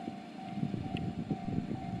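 Japanese level-crossing alarm ringing its electronic bell-tone about twice a second, over the rumble and rhythmic clatter of a train's wheels passing over the crossing.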